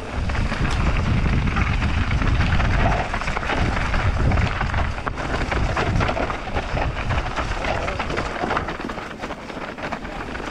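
Mountain bike descending a loose, dusty dirt trail: wind rumbling on the microphone, with tyres on loose dirt and stones and the bike rattling in many small sharp knocks.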